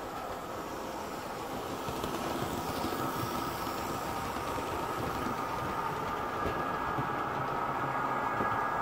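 OO gauge model trains running on the layout: a steady whirr of the electric motors and wheels on the track, slowly getting louder.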